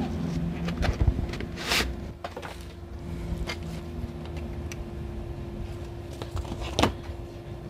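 A Canon MC-G02 maintenance cartridge and its cardboard box being handled: scattered light taps, a short scraping slide about two seconds in, and a sharper knock near the end, over a steady low background hum.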